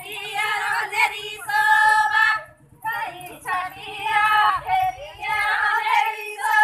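Women's voices singing a Banjara (Lambadi) devotional song, bhajan, in sung phrases with a short break about two and a half seconds in.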